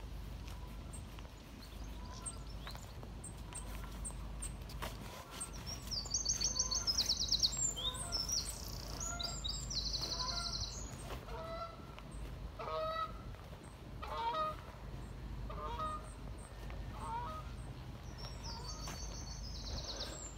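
Geese honking, a string of short calls through the middle and second half. A small songbird's high, fast trills come in between and again near the end, and the loudest moment is a trill about seven seconds in.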